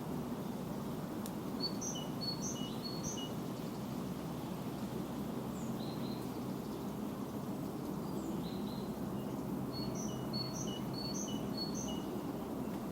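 A small songbird singing in two runs of quick, repeated high notes, with a few single calls in between, over a steady low background rumble.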